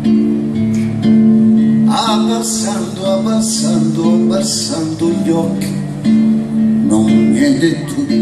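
Live music: an acoustic guitar playing held chords, joined about two seconds in by a man singing through the PA.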